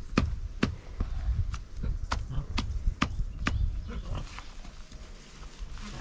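Repeated sharp knocks at about two a second, which give way to lighter clicks after about four seconds.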